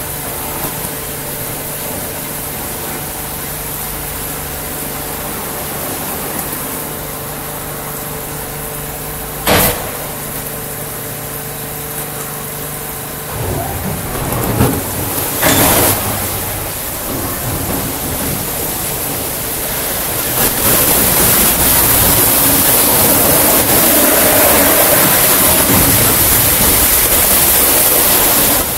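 Wesumat Soft Wash rollover car wash running: spinning brushes swishing against a car over a steady motor hum and the rush of water. About halfway through the hum stops, and a few seconds later the wash grows louder and hissier as the top brush works over the roof.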